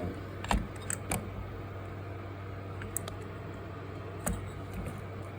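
A few light clicks and knocks of fan motor parts being handled, over a steady low hum.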